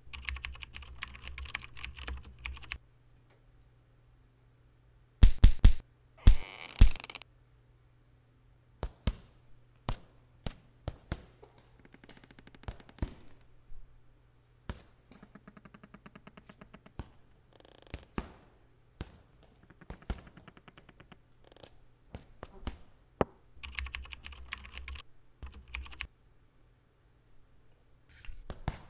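Sound effects for a 3D animated short: a string of separate clicks, knocks and short rushes of noise. A few heavy thumps come about five seconds in and a fast run of ticks around the middle, over a low steady hum.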